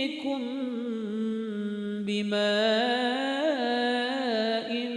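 Melodic Quran recitation: one voice drawing out the word 'ya'tikum' in a long, ornamented held note, the pitch wavering and gliding, with a short break about two seconds in, then going on to 'bi-mā'in' near the end.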